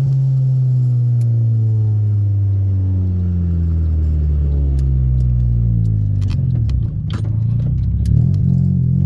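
Honda EK Civic engine running through a 2.5-inch header-back exhaust, its note slowly falling for several seconds, then dipping and picking up again near the end. A few sharp ticks and rattles sound over it.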